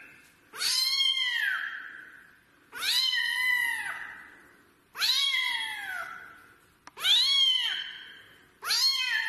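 A kitten meowing over and over: five long, high meows about two seconds apart, each rising and then falling in pitch.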